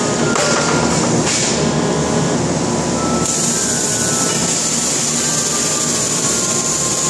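Electric arc welding over the steady din of a busy factory floor. There are two short bursts of arc in the first second and a half, then a steady arc runs from about three seconds in.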